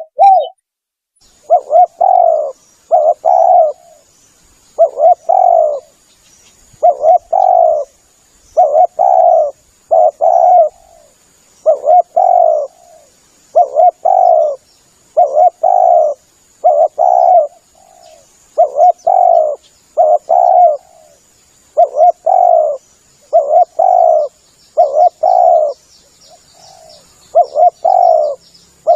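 Spotted dove (tekukur) cooing over and over in its advertising call, short phrases of two or three coos repeating about every one and a half to two seconds.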